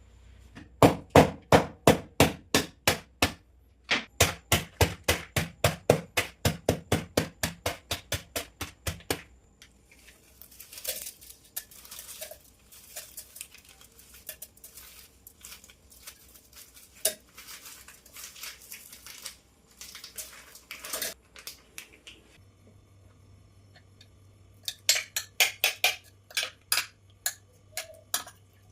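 A knife chopping on a cutting board in quick runs of sharp knocks, about four to five a second, with a pause and scattered clinks of kitchen utensils in the middle, as the smoothie ingredients are cut up.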